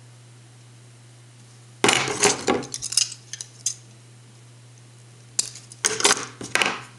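Kitchen knife scraping and clicking against wire ends as it strips them bare, in two bouts of short scratchy strokes and metallic clinks.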